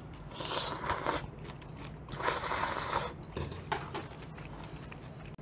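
Udon noodles slurped up into the mouth in two long slurps, each about a second, the second starting about two seconds in.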